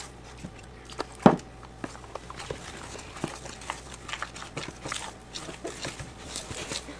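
Bannock dough being mixed in a bowl: scattered soft clicks and taps, with one sharper knock about a second in.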